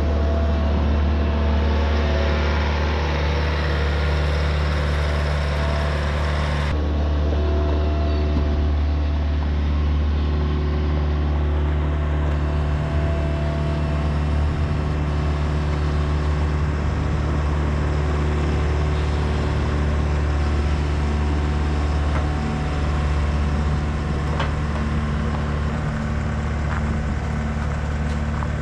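TimberKing 2520 portable sawmill running with its engine at a steady pitch. A higher hiss over the engine cuts off suddenly about seven seconds in.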